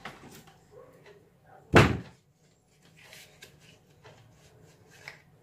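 One loud thump about two seconds in, with faint knocks and rustles of handling around it.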